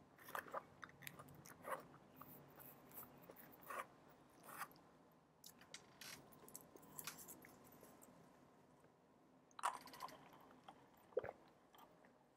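Faint chewing and crunching of leafy salad, with scattered short clicks; the two loudest clicks come near the end.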